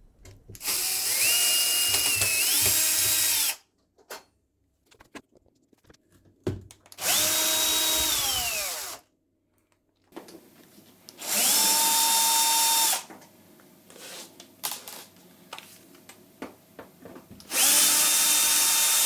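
Electric drill-driver running in four short bursts, its motor whine rising as it spins up and falling as it slows at the end of each run, with small clicks and handling noise between them; it is backing out the screws that fix a built-in dishwasher to the cabinets beside it.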